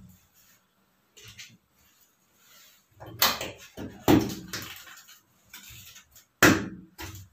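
Plastic transit-bolt hole caps being pressed and snapped into the sheet-metal back panel of an LG washing machine. A few knocks and clunks, the loudest about three, four and six and a half seconds in.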